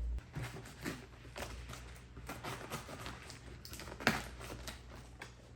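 Packaging being handled while a keyboard box is opened: scattered rustles and small clicks, with one sharper knock about four seconds in.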